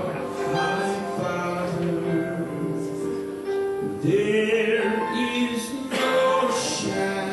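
Slow hymn singing with instrumental accompaniment, the voices holding long notes.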